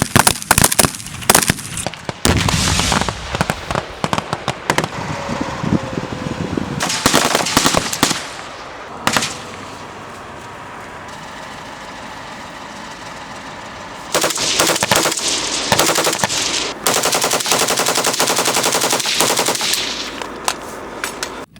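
Automatic weapons firing in rapid bursts, with a quieter steady stretch in the middle before the rapid fire resumes.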